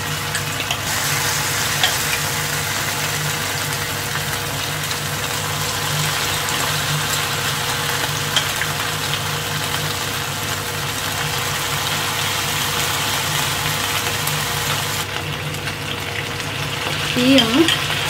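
Marinated boneless chicken pieces deep-frying in hot oil in a pan: a steady sizzle and bubbling, with a few light clicks as more pieces go in. A voice speaks briefly near the end.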